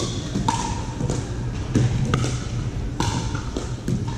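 Pickleball rally: sharp pocks of paddles striking the hollow plastic ball, about four hits spaced roughly a second apart, some ringing briefly after the strike.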